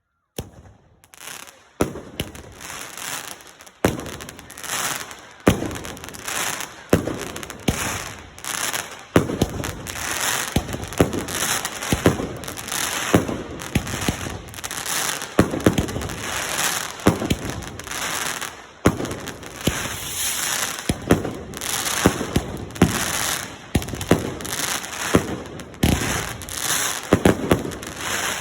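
Consumer fireworks firing in rapid succession: a steady barrage of sharp bangs, about one or two a second, with crackling between them, starting about a second in and keeping up for nearly half a minute.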